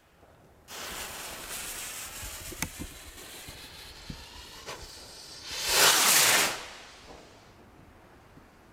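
Firework rocket (Funke Saturn, a 20 g category F2 rocket) launching: a hissing whoosh starts under a second in and slowly trails off, with a few faint pops. A louder hissing rush comes about six seconds in.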